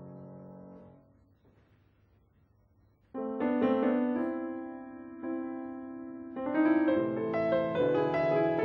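Solo grand piano: a held chord dies away into a pause of about two seconds. A loud chord is struck about three seconds in, another follows about two seconds later, and then faster notes come in thick and full.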